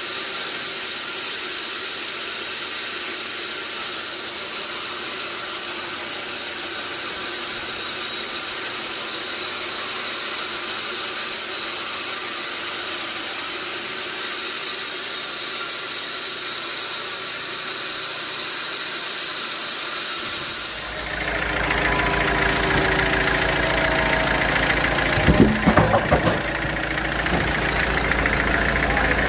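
Sawmill machinery running with a steady, loud mechanical noise and a high steady whine. About two-thirds of the way through, a deeper engine rumble joins in, with a few knocks shortly after.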